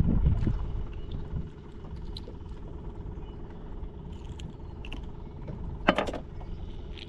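Handling noise as a caught sheepshead is held and unhooked in a kayak: a low rumble at first, then small scattered clicks and knocks, and a brief sharp rattle about six seconds in that is the loudest sound.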